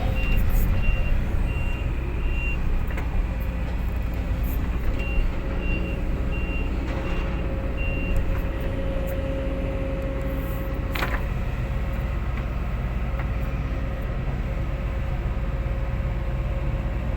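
Construction machine's diesel engine running steadily while digging a trench, with a back-up alarm beeping in two runs of a few seconds each, and one sharp knock about eleven seconds in.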